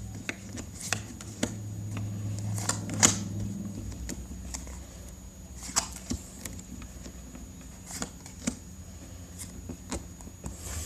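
Trading cards being handled and laid down one after another: irregular light clicks and slaps of card on card, the sharpest about three seconds in. A steady low hum sits under it and drops away about four seconds in.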